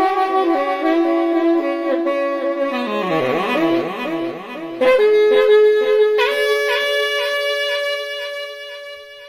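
Background music: a melody of long held notes with wavering pitch, swooping rapidly up and down in the middle, then settling on a long held note that fades out near the end.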